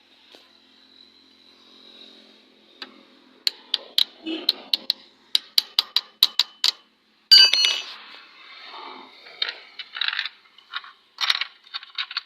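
Metal tools and engine parts being handled while a cover is fitted onto a motorcycle engine: a run of quick sharp clicks, then a loud ringing metal clank about seven seconds in, followed by more clinking and scraping.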